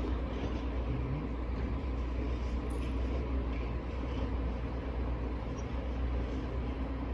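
Steady low rumble of vehicles, even in level throughout.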